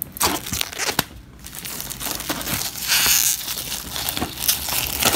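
Clear plastic wrap crinkling as it is peeled off a flat sheet of plywood puzzle pieces, loudest about three seconds in, with a few sharp clicks.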